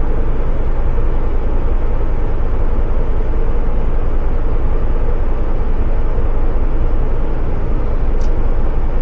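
Engine-driven blower running steadily at a constant pitch.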